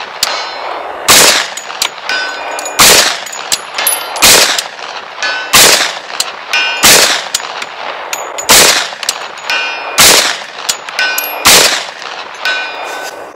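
Eight shots from a 10mm Auto carbine firing 180-grain full-metal-jacket rounds, evenly spaced about a second and a half apart. Each shot is followed by a faint, delayed ping as the bullet hits steel at 200 yards.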